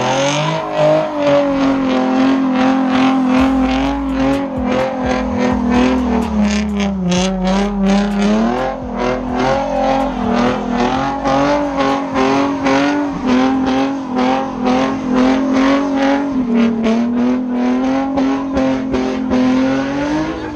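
Car engine held at high revs in a burnout, tyres spinning and smoking. The engine note stays high and fairly steady with a fast pulsing edge, sags about seven seconds in, then climbs back up.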